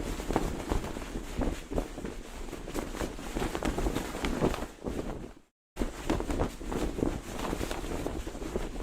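Flag flapping in the wind, its fabric fluttering and snapping in quick, irregular strokes, with wind rumbling on the microphone. The sound cuts out to silence for a split second a little past halfway, then resumes.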